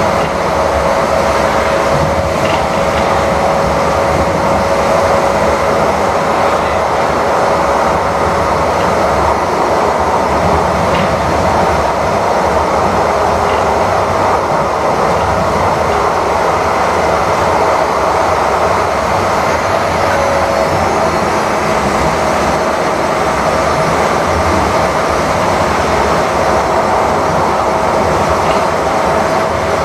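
Interior running noise of a Calgary C-Train Siemens-Duewag U2 light rail car under way: a steady rumble of wheels on rail with a steady whine that steps up in pitch about twenty seconds in as the train picks up speed.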